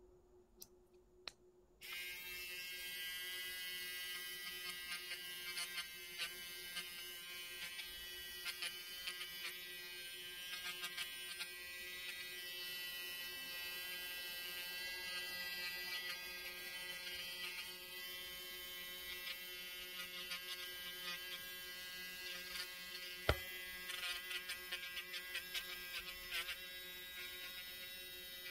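Small pen-style electric nail drill switching on about two seconds in and running with a steady high whine while its thin bit works along the edge of a fingernail, with faint irregular ticks. One sharp click about 23 seconds in.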